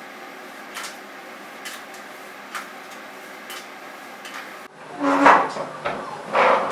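Light knocks about once a second from cassava dough being mixed in a bowl, over a steady low background. After an abrupt change near the end come two louder, noisy bursts.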